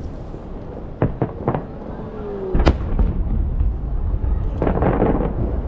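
Aerial fireworks shells bursting: a few sharp cracks, then one loud bang about two and a half seconds in that leaves a low rumble rolling on. A short rush of noise follows near the end.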